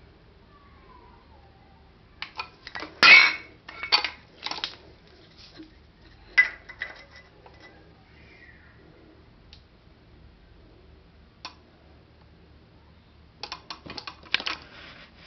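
Metallic clinks and knocks from handling an aerosol deodorant can, in clusters: a run of them about two seconds in, with the loudest, a short rough knock, about three seconds in; a few more around six seconds; and another run near the end.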